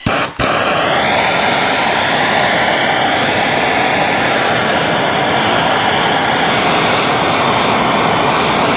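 Blow torch flame burning with a loud, steady hiss, briefly cutting out just after it starts.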